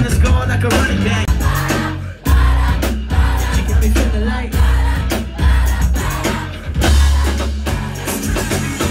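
Live pop-rap band playing loud: drum kit with a heavy kick, bass guitar and electric guitar, with a singer's voice over the top. The band cuts out briefly about two seconds in, then comes back in.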